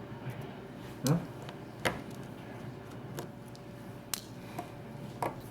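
Several sharp, light clicks and taps, a second or so apart, of small tools and phone parts being handled on a workbench during a smartphone teardown.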